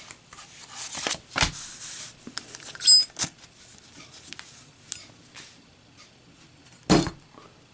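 Brass-cased Zippo lighter in a drop test: a series of sharp metallic clicks and clinks, one about three seconds in with a brief high ring. A loud snap comes about seven seconds in.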